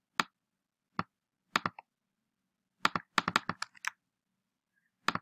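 Clicks of a computer mouse and keyboard: single sharp clicks about a second apart, a quick run of about eight clicks about three seconds in, and one more near the end.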